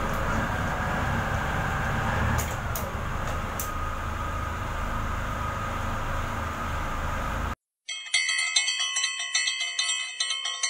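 Steady low drone of the mooring boat's engines, heard inside the wheelhouse. It cuts off abruptly about seven and a half seconds in. After a brief silence comes bell-like chiming music with a pulsing beat.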